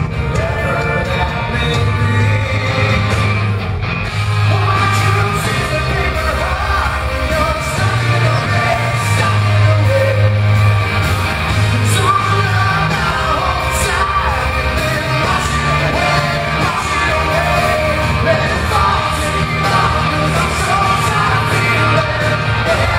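Live rock band playing with a male lead vocalist singing over bass and drums, recorded from the audience in a large hall.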